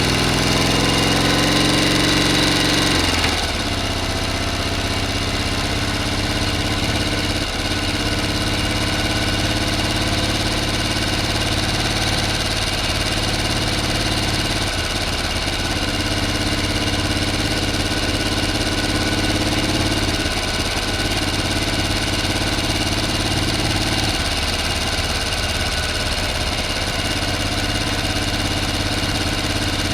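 A motor running with a steady hum. Its pitch rises over the first three seconds, drops suddenly, then settles into an even run with small shifts every few seconds.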